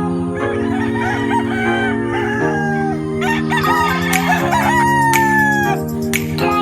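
Chickens clucking, and a rooster crowing once in a long, slightly falling call about five seconds in, over background music with sustained chords.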